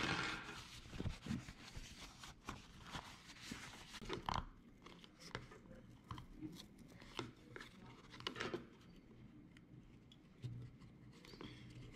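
Faint handling noise as a small circuit board is pushed down into a thin plastic food container: scattered light clicks, taps and rustles of plastic.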